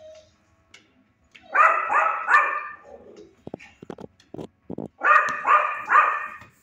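Dog barking in a shelter kennel: two quick runs of three barks each, a few seconds apart, with a few short dull knocks in between.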